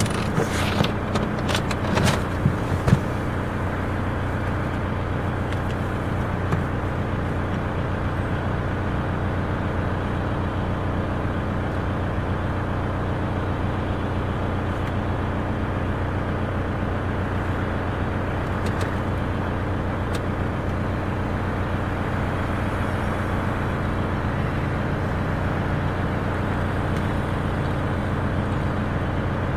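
Car engine idling steadily, heard from inside the cabin, with a few knocks in the first three seconds.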